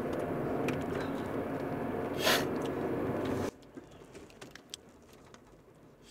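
Steady car cabin noise with a brief hiss about two seconds in. A little past halfway the noise cuts off abruptly, leaving a quiet background with faint clicks.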